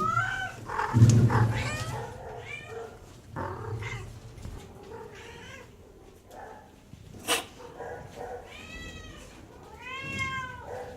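Shelter cats meowing again and again, with drawn-out calls that rise and fall in pitch, the clearest near the end. A loud low knock about a second in and a sharp click about seven seconds in.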